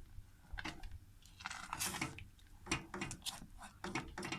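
A utensil stirring a thickening milk-and-cream mixture in a saucepan, scraping the bottom of the pan in quick repeated strokes, about three a second.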